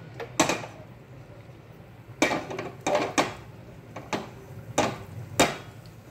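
A metal spoon scraping and clinking against the metal pan of a pressure cooker while stirring cumin seeds and asafoetida frying in ghee: about seven short, irregular strokes.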